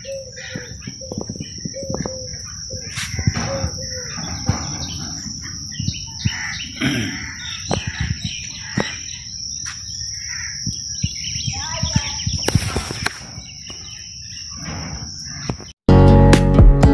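Small birds chirping and calling in many short, irregular chirps over a steady high-pitched whine and low rumble. About a second before the end the sound cuts off abruptly and plucked guitar music begins.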